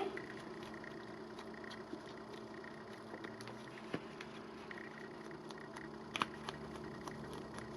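Quiet handling of paper and craft pieces on a work surface: a few small taps and clicks, the sharpest about four seconds in and a pair just after six seconds, over a faint steady hum.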